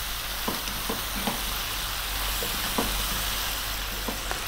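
Chunks of lamb, carrots and fresh tomatoes sizzling steadily in a pan, stirred with a wooden spatula, with scattered light taps and scrapes of the spatula against the pan.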